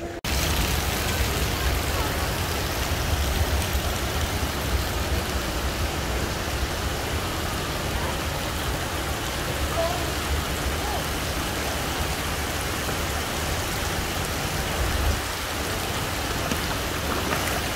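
Pool fountain running: water cascading into the pool makes a steady, rain-like hiss over a low rumble.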